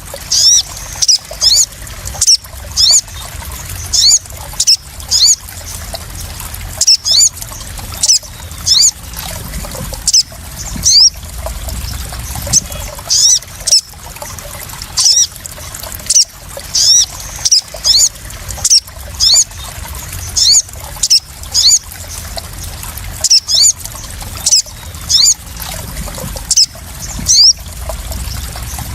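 Sogon bird calling: short, high, downward-sweeping chirps, often in pairs, about one to two a second, over a steady background of splashing, trickling water.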